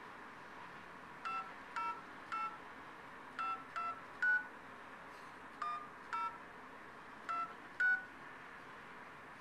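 Phone number being dialed on a touch-tone keypad: ten short two-tone beeps in quick groups.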